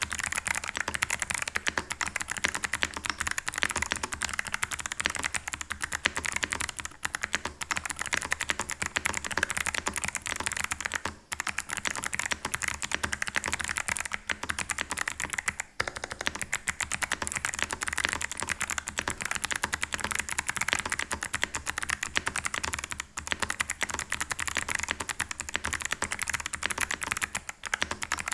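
Steady typing on an Ajazz AC100 mechanical keyboard fitted with clicky Kailh Box White switches, modded with lubed springs, PE foam and polyfill. A dense run of sharp keystroke clicks with a couple of brief pauses.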